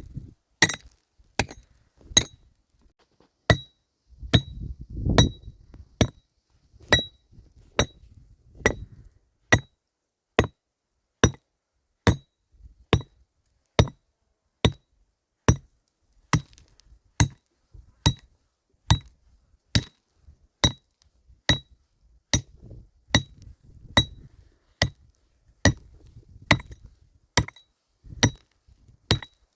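Hammer driving nails into wooden roof planks: steady, evenly paced strikes a bit more than one a second, each with a short metallic ring.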